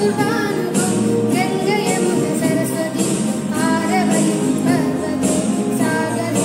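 Music: a song with a woman's singing voice over instrumental backing.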